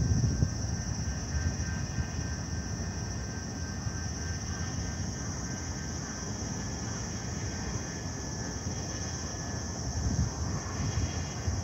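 Low, steady rumble of distant city road traffic mixed with wind buffeting the microphone, a little stronger near the start and end, with a steady high-pitched hiss above it.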